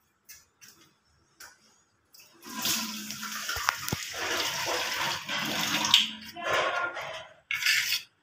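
Kitchen tap running and splashing into a steel bowl of flour-and-water paste and the steel sink, starting about two seconds in and stopping near the end. A spoon clicks against the steel bowl a few times.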